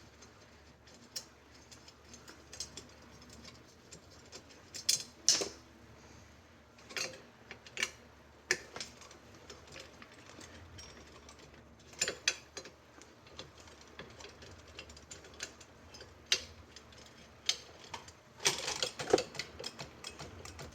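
Irregular metallic clicks and clinks of a bicycle wheel's spokes and nipples being worked loose by hand, the spoke tension gone, with louder clattering about five seconds in and again near the end.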